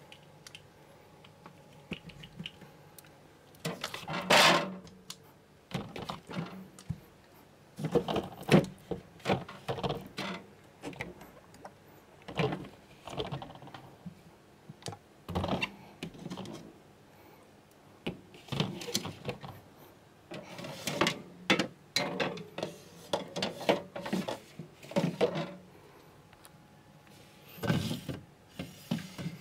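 Irregular knocks, thunks and light rattles of hard objects being handled, with a few louder thunks.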